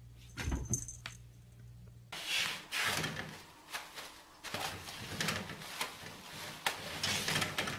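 A cat's paws bumping and rattling a sliding closet door, with a low thud about half a second in. After about two seconds this gives way to crinkly paper rustling and sharp clicks, as a kitten tugs at toilet paper while standing on a glass bathroom scale.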